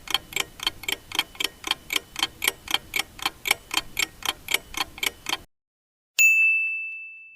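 Countdown-timer clock ticking sound effect: about three to four even ticks a second, which stop about five and a half seconds in. A moment later a single bell ding rings and fades away, marking the end of the countdown.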